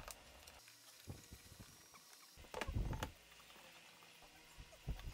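Short knocks of wooden pieces being handled and set down on a plywood jig, a few separate taps with the loudest cluster about two and a half to three seconds in.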